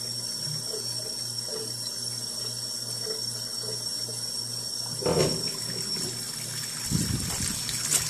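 Kitchen faucet running water into a stainless steel sink over a glass wine bottle held beneath it, a steady splashing rush. A couple of knocks come about five seconds in and again near the end.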